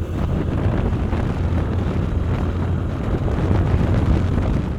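Wind buffeting the microphone on a moving 100 cc motorcycle, a steady rushing noise heavy in the low end, with the bike's engine and road noise beneath it.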